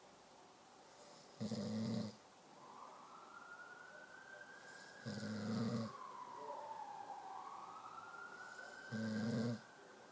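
Three loud snores, about every three and a half seconds, each lasting under a second. Between and under them, a quieter wailing tone rises, falls and rises again from about two and a half seconds in.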